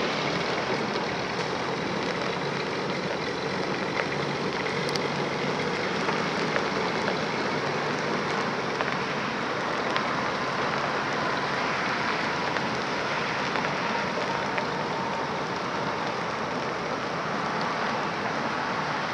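1945 GMC DUKW amphibious truck driving slowly on a gravel driveway: its GMC straight-six engine running steadily under a constant noise of the big tyres rolling over gravel.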